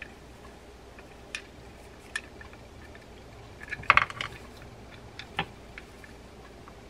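Small metal parts of a spinning reel clicking and clinking as they are handled and a bearing is fitted back into the reel: a few single ticks, with a short cluster of rattling clicks about four seconds in, the loudest.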